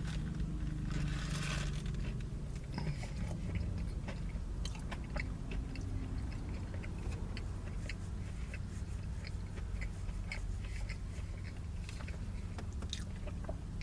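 Close-up chewing and crunching of a breaded crispy fried chicken sandwich, many small crunches and clicks, over a low steady rumble of highway traffic heard from inside a car with the windows closed.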